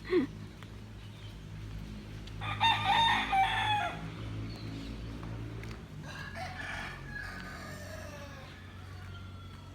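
A rooster crowing loudly about two and a half seconds in, followed by a fainter crow a few seconds later.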